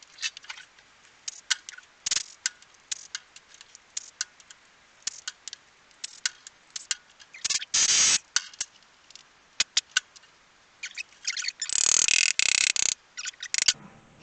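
Hand tools working on a motorcycle engine: scattered sharp metallic clicks and clinks, with two longer rattling bursts, one about eight seconds in and a louder one about twelve seconds in.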